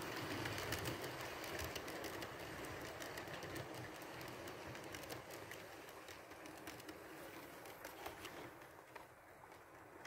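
Model passenger train rolling past on the layout track: a steady running rumble with many light wheel clicks, growing quieter as the coaches move away.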